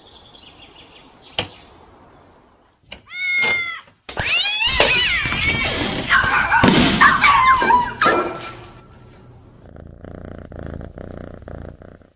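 Cats meowing and yowling: a knock about a second and a half in, then one drawn-out meow, then several overlapping cat calls for about four seconds before they fade.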